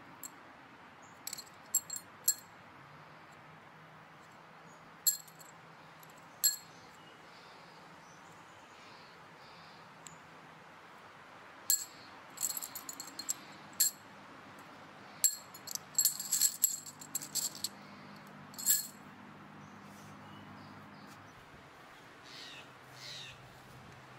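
Short, high-pitched chirps from a small wild animal, some single and some in quick runs, busiest in the second half, over a faint low steady hum.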